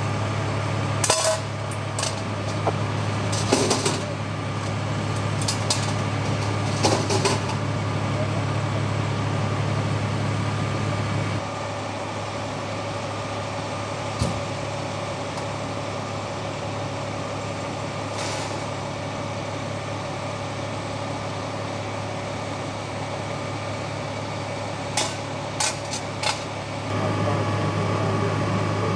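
Pierce ladder fire truck's diesel engine idling with a steady low hum, with several sharp metal clanks and knocks over it. The hum drops to a quieter background partway through and comes back near the end.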